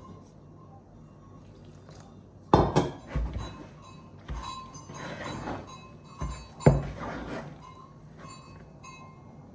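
Kitchenware clinking and knocking: about five separate clanks of dishes or pots, each with a short ring.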